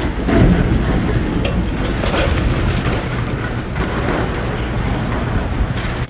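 Demolition excavator breaking concrete off a stairwell tower: a continuous heavy rumble with crunching and crashing of falling concrete debris.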